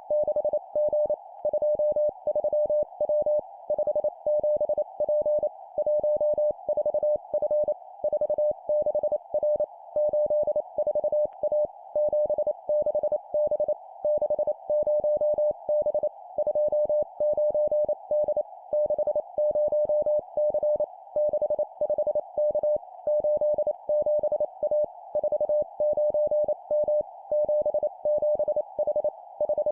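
Morse code (CW) sent at 25 words per minute as a single steady beeping tone keyed rapidly into dots and dashes. It forms three-character groups of two numbers and a letter, set apart by short pauses, over a faint steady narrow hiss like a receiver's.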